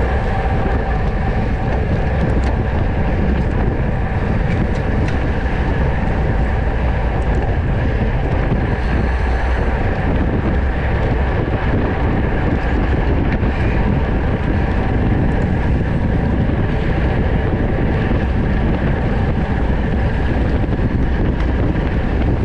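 Steady rush of wind over the microphone of a camera riding on a racing bicycle at speed, mixed with tyre and road noise. It holds even and unbroken throughout.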